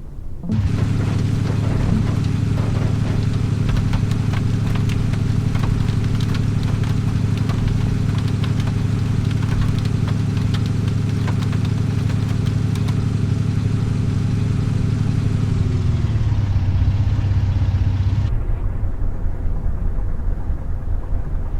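A vehicle engine running at a steady pitch under a dense hiss with fine crackle. The engine note drops about sixteen seconds in, and the hiss cuts off suddenly about two seconds later.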